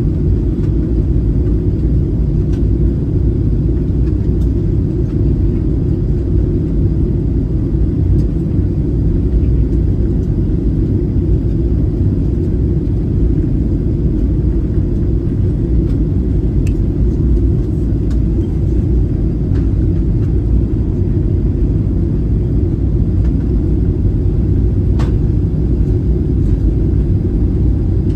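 Steady low roar inside the cabin of a Boeing 737-800 in flight: engine and airflow noise heard from a window seat near the rear.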